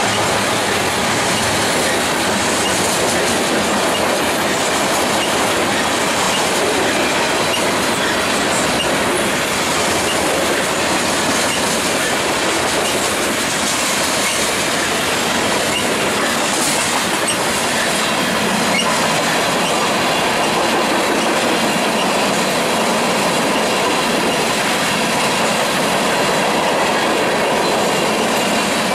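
The cars of a long BNSF freight train rolling past at close range: a loud, steady noise of steel wheels running on the rails.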